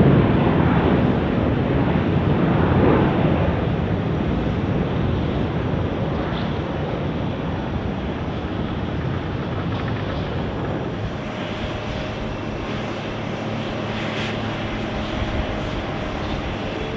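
Rolls-Royce Trent 700 jet engines of an Airbus A330-200 on its climb-out after takeoff: a loud roar that slowly fades as the aircraft climbs away. About two-thirds in it gives way to a quieter, steady jet engine hum with faint whining tones from another Airbus A330 on the runway.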